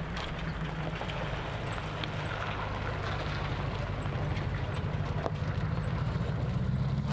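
Armoured military Humvee's diesel engine running steadily with a low hum, its pitch rising near the end.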